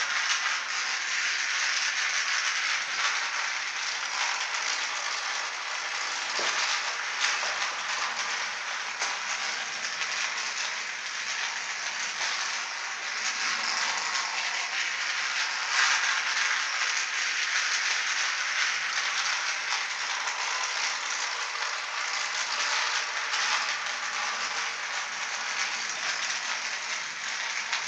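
Battery-powered toy electric train running round its track: a steady rattle of the small motor, gearing and wheels on the plastic rails.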